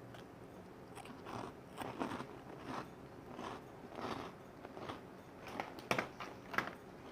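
A person chewing food close to the microphone: a steady rhythm of wet chewing sounds, one or two a second, with two sharper clicks near the end.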